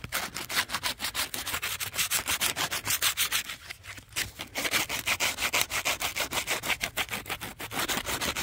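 60-grit sandpaper rubbed by hand over the tip of a green, still-wet wooden walking stick in quick back-and-forth strokes, a steady repeated rasping.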